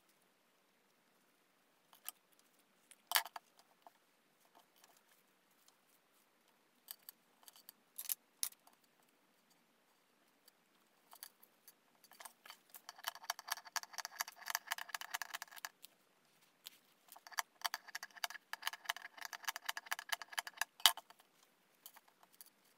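A zipper being slid along its teeth in two runs of about three seconds each, a fast even rasping tick, after a few scattered small clicks and taps; a single sharp click comes near the end.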